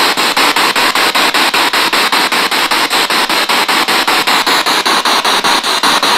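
SB7 spirit box sweeping through radio stations: a steady hiss of static chopped by regular clicks, about six a second, as it jumps from frequency to frequency.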